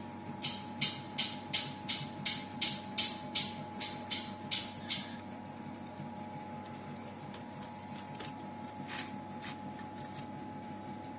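About a dozen sharp taps in a steady rhythm, roughly three a second, then a few fainter ones in the second half. A steady high hum runs underneath throughout.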